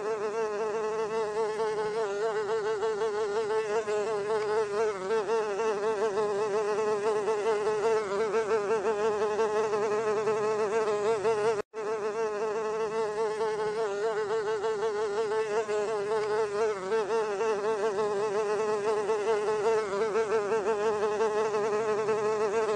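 Housefly buzzing in flight: a steady, wavering wing buzz with a brief dropout about halfway through.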